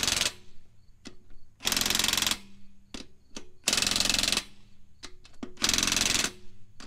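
Cordless 1/2-inch Ridgid impact wrench hammering lug nuts down through a 100 ft-lb torque stick on a 22 mm socket: short bursts of under a second, about every two seconds, one burst per nut, with small clicks between them as the socket is moved to the next nut. The torque stick holds each nut to about 100 ft-lb.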